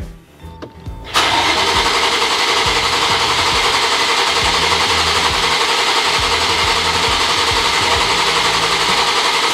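BMW S58 twin-turbo straight-six turned over by its starter motor. The steady cranking starts about a second in and runs on without the engine catching: the coil packs are out, so it cranks without firing.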